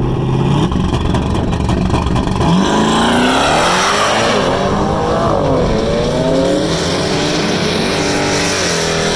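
Turbocharged V8 Chevrolet Camaro held at the line on a two-step launch limiter, then launching hard down the drag strip. The engine pitch climbs and drops back several times as it shifts up through the gears.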